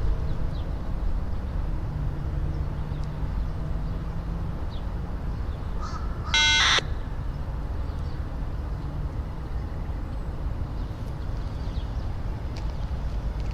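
A single crow caw about halfway through, short and loud, over a steady low rumble.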